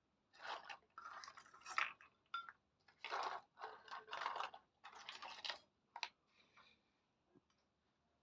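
Hands handling miniature toy kitchen pieces, making about eight short, crackly bursts of sound, each under a second long, that stop about six seconds in.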